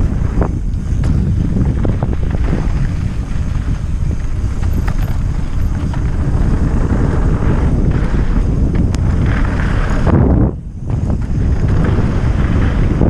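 Wind buffeting a GoPro's microphone on a mountain bike descending a downhill trail, over a steady low rumble with scattered clicks and rattles from the bike. The sound briefly drops away about ten and a half seconds in.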